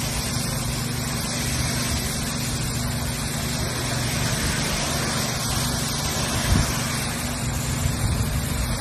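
Pressure washer running steadily: a constant engine hum under the hiss of the water jet spraying stone steps.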